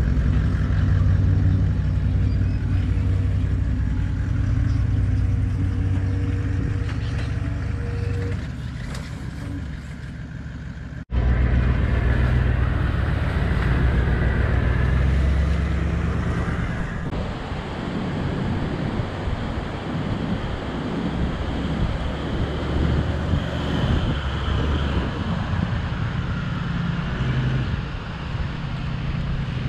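Toyota LandCruiser 79 series V8 turbo-diesel running as it tows a caravan. The sound cuts out for an instant about eleven seconds in and comes back with more hiss over the engine.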